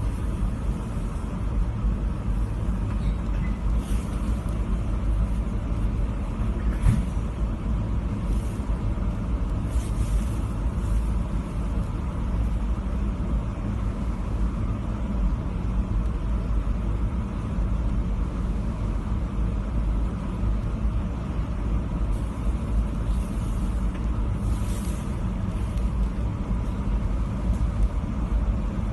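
Biological safety cabinet's blower running with a steady low rumble, with a few faint clicks and rustles from gloved hands handling a plastic sample tube.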